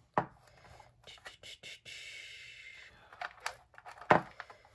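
Rolls of washi tape and their clear plastic organizer being handled and shifted: a sharp click just after the start, a patter of small clacks, a short rasp about two seconds in, and a louder knock near the end.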